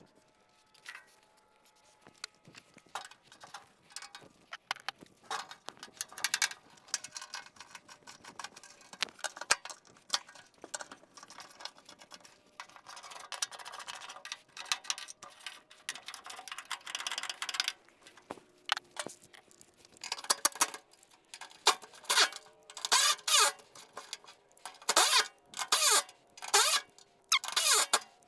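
Hand ratchet clicking as fender top bolts are worked loose. The clicking is scattered at first, runs dense through the middle, then comes in separate quick strokes about two a second near the end.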